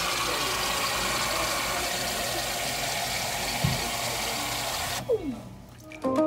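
Self-serve soda fountain pouring cola into a paper cup: a steady, even hiss of carbonated drink rushing from the valve. It starts sharply and cuts off about five seconds in, when the lever is released, with a brief thump partway through. Music comes in right at the end.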